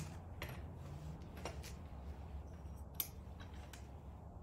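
Center-bar clamp and quick-release fittings of a QU-AX twin unicycle being worked by hand: a few light metallic clicks and rattles, the sharpest click about three seconds in.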